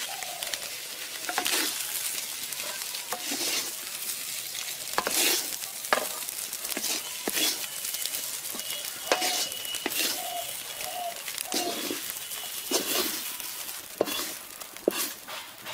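Wooden spatula scraping cooked fish-and-potato chop filling out of a metal kadai and onto a steel plate: repeated scrapes and knocks at irregular intervals over a steady hiss.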